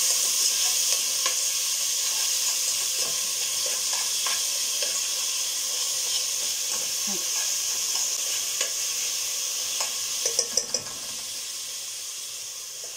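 Grated onion sizzling in melted ghee in an aluminium pot while a metal spoon stirs it, scraping against the pot; the onion is being browned. The sizzle slowly grows quieter, and a short run of sharper clicks from the spoon comes about ten seconds in.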